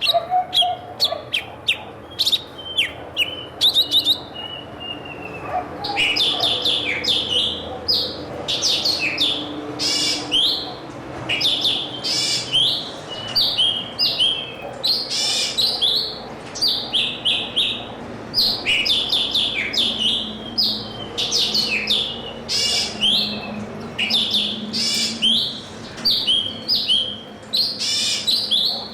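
Small birds chirping continuously, many short high calls in quick clusters one after another.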